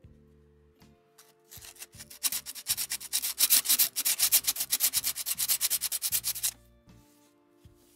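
Hand sanding a ring-shaped grinder part with a strip of 240-grit sandpaper: rapid, evenly repeated back-and-forth scratchy strokes that start about a second and a half in and stop about six and a half seconds in.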